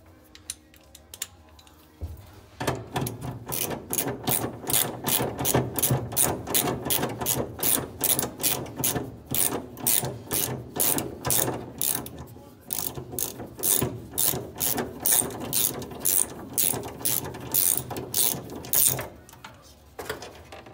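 Hand ratchet wrench clicking steadily, about four clicks a second, as it backs a nut off the steering column mount. The clicking starts about two seconds in and stops shortly before the end.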